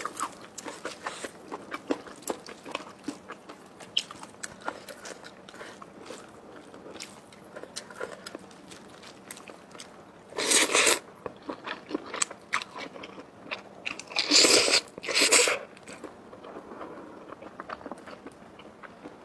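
Close-up eating sounds: a person chewing and biting food, with many small crunching clicks. Three louder noisy bursts stand out, about ten seconds in and twice around fourteen to fifteen seconds.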